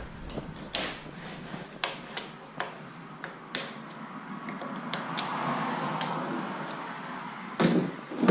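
Hand tools being handled and rummaged through: scattered sharp clicks and light knocks, with a few seconds of rustling or scraping in the middle and a heavier knock near the end.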